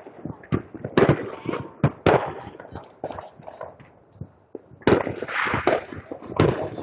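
Consumer fireworks and firecrackers going off: a run of sharp, irregular bangs and pops, with a denser cluster of pops about five seconds in.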